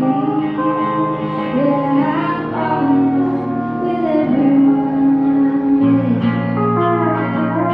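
Slow guitar music, the intro of a song, with held notes that slide from one pitch to the next.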